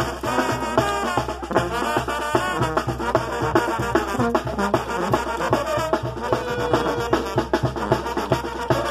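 Brass band music: trumpets and trombones playing a lively dance tune over a steady drum beat.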